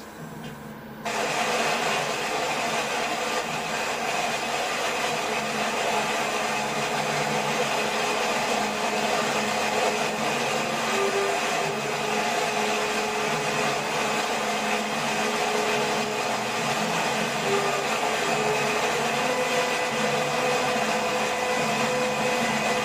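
Steady rush of falling water, starting abruptly about a second in and holding even throughout.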